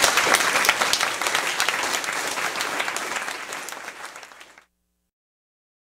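Audience applauding, fading away and cutting off abruptly about four and a half seconds in.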